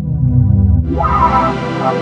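Ableton Meld software synthesizer presets playing: a low, bass-heavy sustained patch switches about a second in to a brighter patch with quick rising pitch glides, as the bass fades away.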